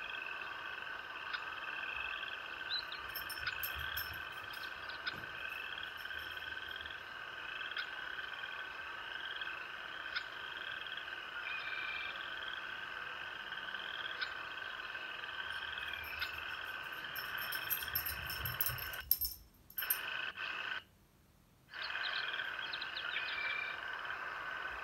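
Steady chorus of small calling animals, with short trilling calls repeating about once a second. It cuts out briefly twice near the end.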